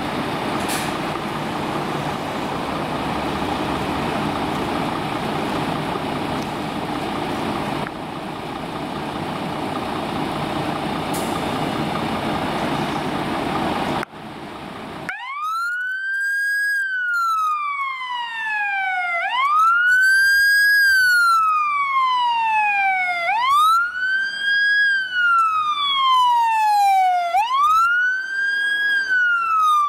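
A Scania P410 fire engine's diesel engine running at the station, then, about halfway through, its siren starts a repeating wail, rising quickly and falling slowly about every four seconds.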